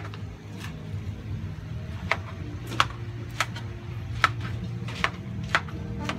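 Metal spatula clinking and scraping against an aluminium wok while stir-frying rice noodles: sharp clinks at uneven intervals, roughly one or two a second, over a steady low hum.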